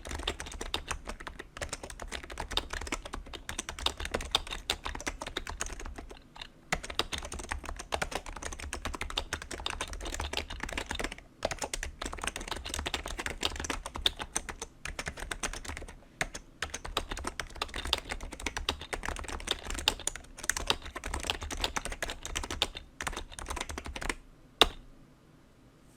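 Fast typing on a BTC 7150 keyboard with BTC dome-with-slider switches (rubber domes under plastic sliders) and double-shot ABS keycaps: a dense stream of key clicks broken by a few short pauses. It ends near the end with one sharp, loud key strike.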